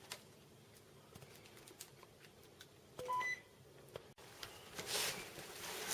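A quick run of short electronic beeps rising in pitch, about three seconds in, typical of a two-way radio's transmit or roger tone, amid faint clicks.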